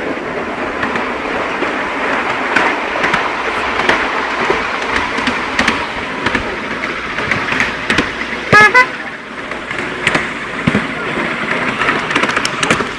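Miniature railway train running steadily along its track, with two quick loud toots of the locomotive's whistle about eight and a half seconds in.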